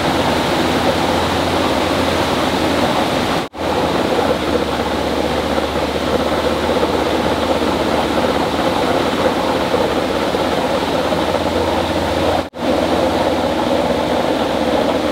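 Steady rushing of water, as of a stream or small waterfall, with a low hum beneath it; the sound drops out briefly twice.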